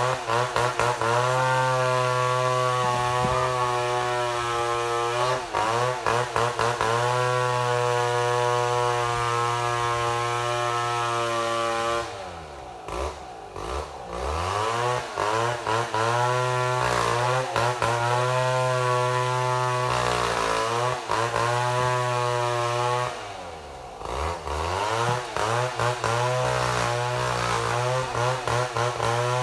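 Chainsaw milling mahogany, running at high revs. Twice, about 12 and 23 seconds in, the throttle drops to idle and then revs back up.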